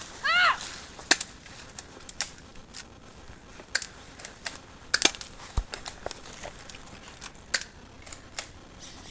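Sharp snaps and crackles at irregular intervals, a dozen or so, with a short pitched call that rises and falls about a third of a second in.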